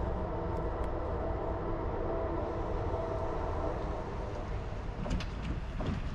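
Approaching Norfolk Southern diesel freight locomotive, heard at a distance as a steady rumble with a few steady tones. About five seconds in, a pickup truck crosses the tracks, adding a short passing-vehicle sweep and a few clicks.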